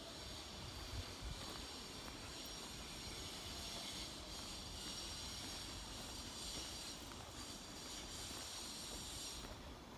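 Faint, steady outdoor ambience: a high hiss over a low rumble, with the hiss dropping away near the end.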